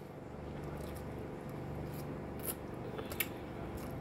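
Quiet eating at the table: chewing, with a few short, light clicks of a fork against a glass bowl or of the mouth.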